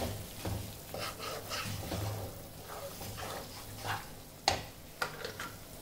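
Wooden spatula stirring and scraping thick masala paste around a nonstick kadhai while it sizzles softly in oil, in a run of short strokes. Two sharp knocks on the pan come about four and a half and five seconds in.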